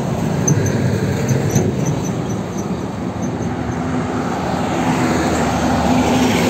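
Highway traffic passing on a bridge: steady tyre and road noise, with a truck's engine droning past, louder near the end.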